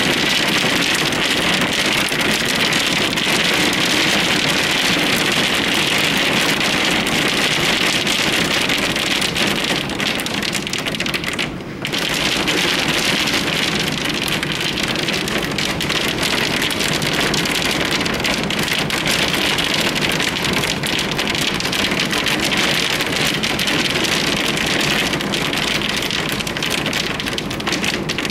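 Heavy rain and hail pelting down in a dense, steady hiss, with a brief dip about twelve seconds in.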